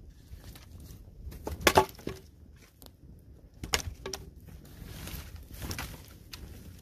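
Dry logs and branches being laid onto an open fire pit: a few sharp wooden knocks, the loudest about two seconds in, then a stretch of rustling twigs and dry grass near the end.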